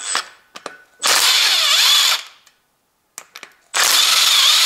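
Electric power driver spinning loose a 10 mm camshaft bearing cap bolt on a Toyota 2ZZ-GE cylinder head through a long socket extension. It runs in two bursts of about a second each, its pitch dipping and recovering as the load on the bolt changes, with small clicks between them.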